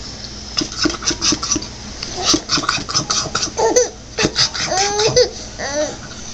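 Baby laughing in a string of short bursts, with a few longer pitched laughs about four to five seconds in.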